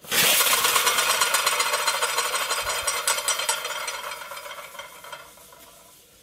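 Glass Hero's engine (aeolipile) spinning over a Bunsen burner flame, its bent arms jetting steam and spitting boiling water: a loud hiss with a fast, even spluttering rattle. It starts suddenly and fades away over the last couple of seconds.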